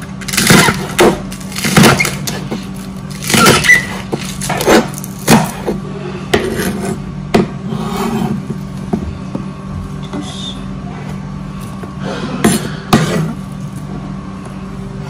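Kitchen knife chopping leeks on a cutting board: irregular knocks of the blade striking the board, thinning out in the middle and picking up again briefly near the end, over a steady low hum.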